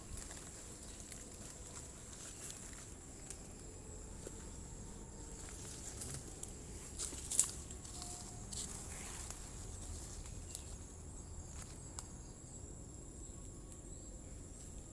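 Tropical forest insects keeping up a steady high-pitched buzz, with scattered sharp clicks and knocks, the loudest about seven seconds in.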